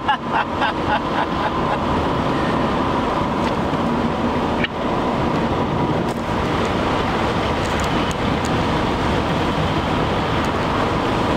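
Steady road and tyre noise inside a moving car driving along at speed.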